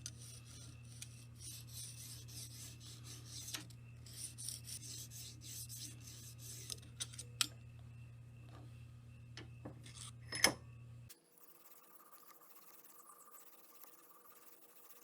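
A Lansky 600-grit fine sharpening hone being drawn in repeated rasping strokes along a clamped knife blade's edge at a fixed 20-degree guide angle. A sharp click comes about ten seconds in. The scraping stops just after, leaving a quieter background.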